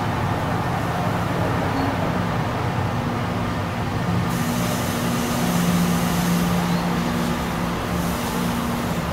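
NJ Transit bilevel passenger coaches rolling slowly past, a steady rumble with a low hum. A higher hiss joins about four seconds in.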